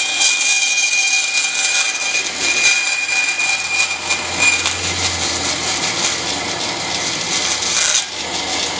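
Bandsaw running, its blade cutting a slot into a plastic throat plate fed into it by hand: a steady hiss with a high whine. This is the kerf cut that makes the plate a zero-clearance insert. The cutting noise drops off about eight seconds in.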